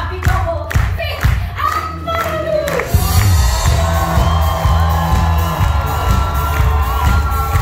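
Live theatre band music with an audience cheering and whooping. A voice rings out over the music in the first few seconds. About three seconds in, the music gets fuller and louder over a steady beat, and the cheering swells.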